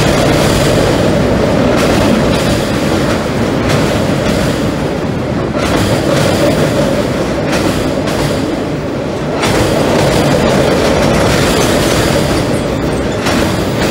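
Norfolk Southern freight cars rolling across a steel girder railroad trestle overhead, making a steady, heavy rumble and rattle of wheels on rail and bridge steel, with occasional knocks.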